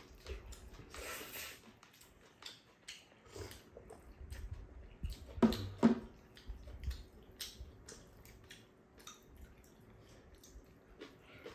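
People eating tteokbokki with noodles: slurping strands, chewing and chopsticks clicking against bowls, a run of small scattered sounds. Two louder short sounds come a little past halfway.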